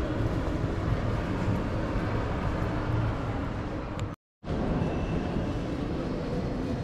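Steady, dense background hubbub with a low rumble, as heard on a city walk. It drops out completely for about a quarter of a second a little after four seconds in, where the recording cuts, then resumes.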